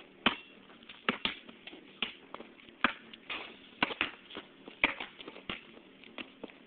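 A basketball bouncing on a paved driveway, with shoe scuffs: a string of sharp thuds at uneven intervals, about two a second.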